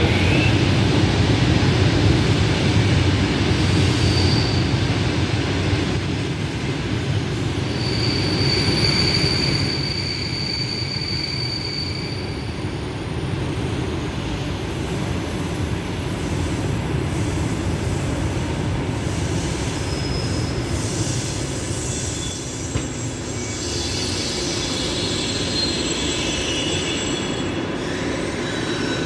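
ED4M electric multiple unit rolling along the platform: a steady low rumble of wheels and running gear, loudest about ten seconds in and then easing off, with thin high-pitched squeals from the running gear at several points.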